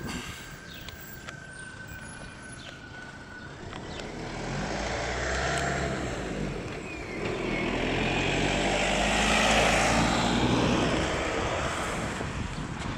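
A motor vehicle passing along the street: engine and tyre noise build from about four seconds in, are loudest around ten seconds, then fade.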